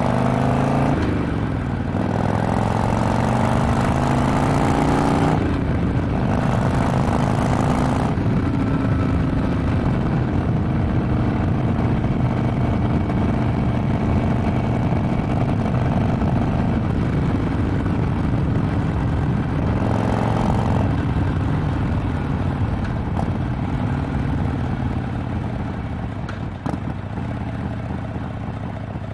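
2007 Harley-Davidson Sportster XL883R's air-cooled V-twin through a Vance & Hines exhaust, pulling up through the gears. Its pitch rises and drops back at a shift about a second in and again about five seconds in, then climbs once more and holds a steady cruise. Around twenty seconds in there is one more short rise and drop before the engine settles.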